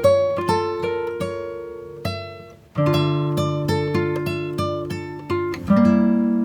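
Background music: plucked acoustic guitar playing a steady, picked melody.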